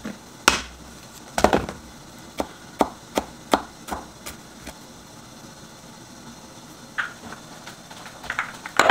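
Chef's knife chopping red chilies on a wooden cutting board: about ten sharp, irregular knife strikes, stopping about halfway through. A few lighter knocks follow near the end.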